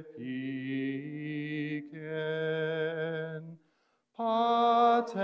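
A man singing Greek words slowly to a simple hymn-like tune, unaccompanied, holding each note long, with a short breath pause a little before the end.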